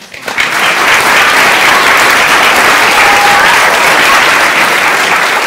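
Audience applauding, breaking out suddenly right after the children's singing stops and keeping up steadily.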